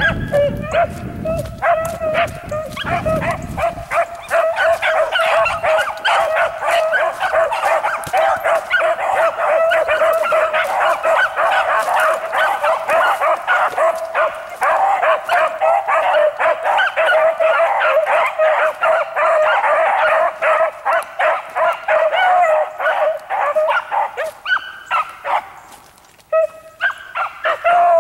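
A pack of beagles baying on a rabbit's trail: many overlapping bawls and barks in a near-continuous chorus that thins briefly near the end, then picks up again. The hounds are giving tongue on the scent, running the rabbit.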